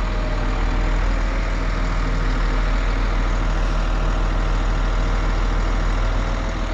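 Crane truck's engine running steadily at a constant speed, powering the crane with the load held up.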